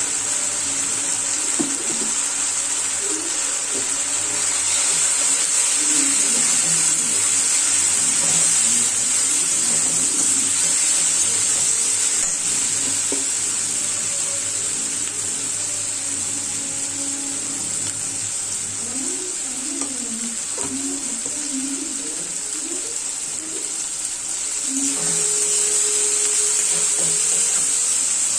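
Food sizzling steadily in a hot pan of egg tadka masala while it is stirred.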